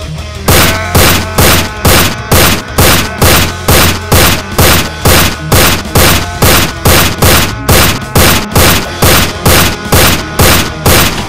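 Gunfire sound effect: a long, steady string of loud single shots at about two a second, starting about half a second in and running for some ten seconds.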